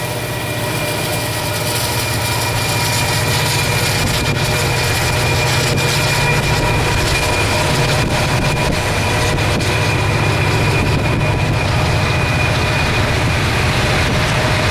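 Steady low engine rumble and road noise, heard from inside a moving car.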